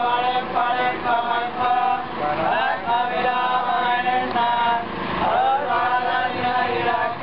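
A group of men chanting temple hymns together in unison, holding long steady notes.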